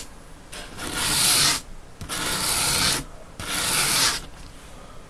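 A steel knife blade stroked across 220-grit sandpaper on a soft foam backing, three long rasping strokes of about a second each, convexing the primary edge. The strokes stop about a second before the end.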